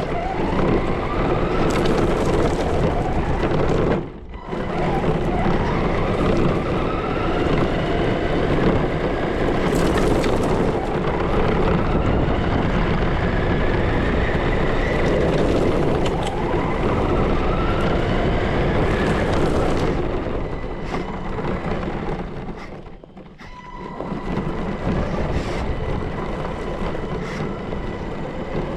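Arrma Granite 4x4 RC monster truck's electric motor whining and rising in pitch with each burst of throttle, over a continuous crunch and rattle of tyres and chassis on gravel. The sound drops away briefly about four seconds in and again around twenty-three seconds.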